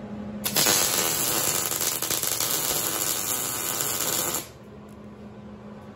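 Electric welding arc crackling steadily while a weld is laid on steel, starting abruptly about half a second in and cutting off sharply after about four seconds.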